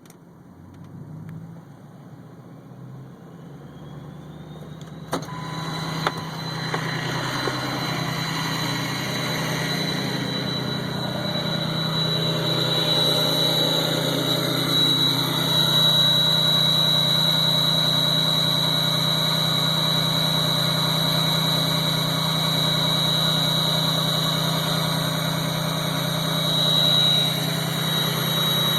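Ford 6.0 Powerstroke V8 turbodiesel idling through a straight-piped exhaust, with a high turbo whistle that rises in pitch over the first few seconds and then holds steady. Two sharp clicks come about five and six seconds in.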